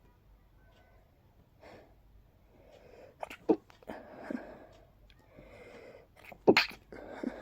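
A person sneezing twice, about three seconds apart: wet hay-fever sneezes, each preceded by breathy catching inhales and followed by a noisy breath.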